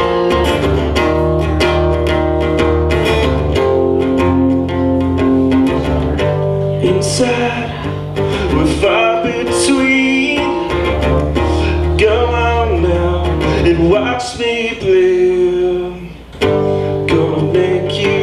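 A man singing while strumming an acoustic guitar, a solo acoustic song played live, with a brief break in the playing near the end.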